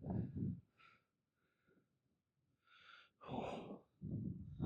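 A few short, breathy puffs of breath, the longest about three seconds in, with silence between them.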